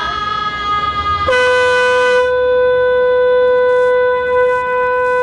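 Shofar blown in one long blast: a higher note for about the first second, then a drop to a lower, steady note that is held on.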